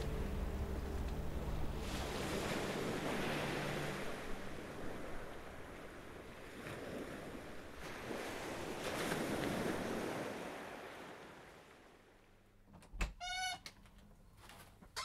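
Waves washing in and drawing back on a pebble shore, swelling and ebbing every few seconds, with a low steady hum under the first few seconds; the surf fades out after about ten seconds. Near the end, a door latch clicks and the door squeaks briefly as it opens.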